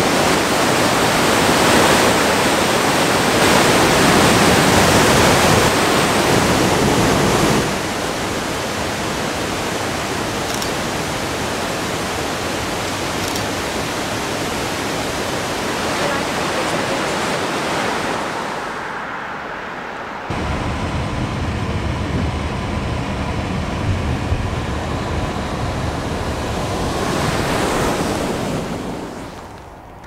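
Dawson Falls, a broad curtain waterfall on the Murtle River, giving a steady, dense rush of falling water. The sound changes abruptly about eight seconds in and again around twenty seconds, then fades out near the end.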